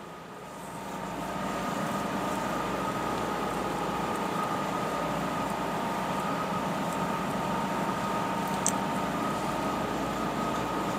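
Steady background hum and hiss with faint steady whining tones, swelling over the first two seconds and then holding level.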